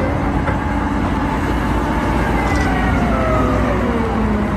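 Large Caterpillar wheel loader's diesel engine running steadily under load, with a whine that falls in pitch over the second half.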